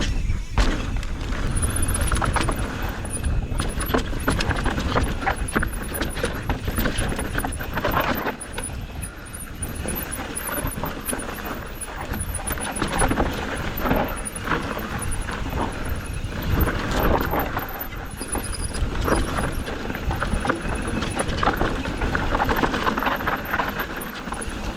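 Mountain bike descending a rough dirt trail: tyres crunching over dirt and rocks while the bike rattles and knocks over the bumps, with a steady low rumble of wind on the microphone.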